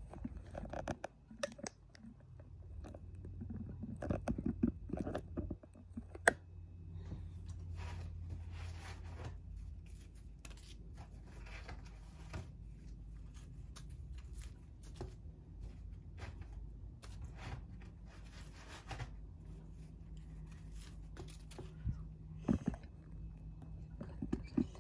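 Kita flatbread being torn and broken into pieces by hand in a glass bowl: irregular crunching and crackling, with a sharp tap about six seconds in.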